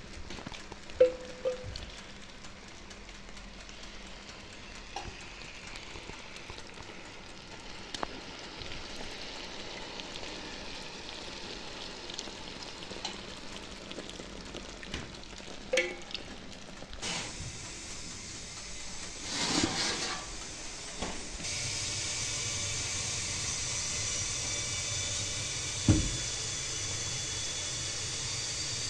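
A soft, steady sizzling hiss with a few light clicks and knocks; the hiss grows louder and brighter about two-thirds of the way in.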